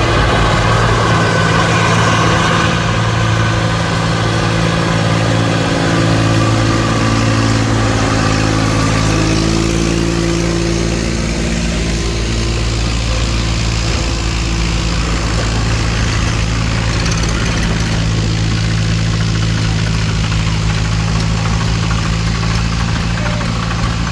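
Diesel engine of heavy farm or construction machinery running steadily near idle, its pitch rising a little about ten seconds in.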